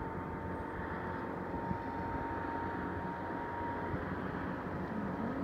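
Motorboat engine droning steadily, slowly growing louder, with a faint thin whine for a couple of seconds in the middle.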